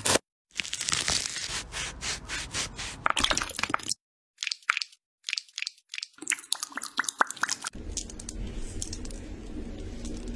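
Food-preparation sounds: a knife cutting through a pink grapefruit with dense crackling and crunching for the first few seconds, then scattered sharp clicks and scrapes, and a low steady rustle near the end.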